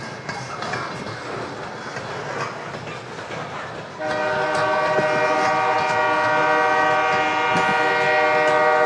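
Freight train cars rolling past with a rumbling clatter. About four seconds in, a locomotive air horn starts one long, loud, steady blast of several notes at once.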